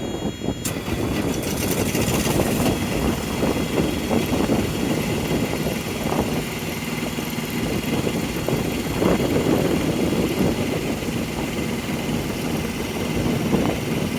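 Thermo King APU diesel engine on a semi truck, running steadily at idle, working again after its low coolant was topped up.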